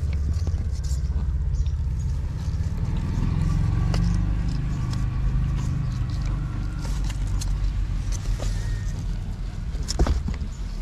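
A mother cat purring close to the microphone as she grooms her kittens: a steady low rumble, with scattered small clicks of licking and movement over it.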